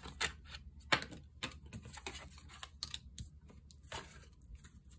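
Tarot cards handled and laid down on a table: a series of light clicks and taps of card on card, the sharpest about a second in.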